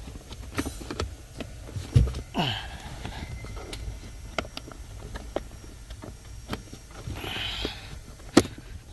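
Lower steering-column cover being pushed back into place: scattered clicks and knocks, with a louder knock about two seconds in and another near the end, and brief scraping.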